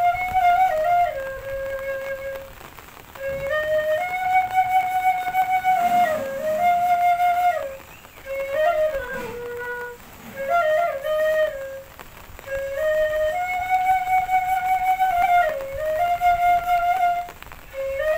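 Background music: a solo flute playing a slow melody of held notes in repeating phrases with short pauses between them.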